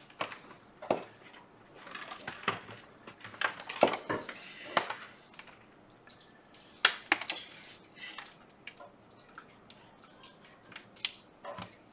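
Scattered small clicks and knocks of a MacBook and its cables being handled on a workbench, with a USB-C power cable plugged into the laptop's side port near the end.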